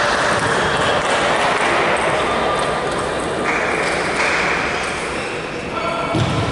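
Table tennis ball clicking off bats and the table during a doubles rally, over a steady hiss of background noise in a large hall.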